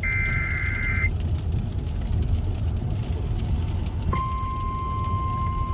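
NOAA Weather Radio alert sequence. A harsh, warbling SAME digital data burst lasts about a second, then there is radio hiss and low hum. About four seconds in, the steady 1050 Hz Weather Alert Tone starts, signalling that a warning is about to be read.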